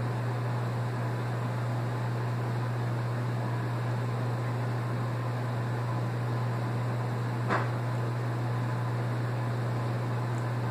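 A steady low machine hum with an even hiss, with one short click about seven and a half seconds in.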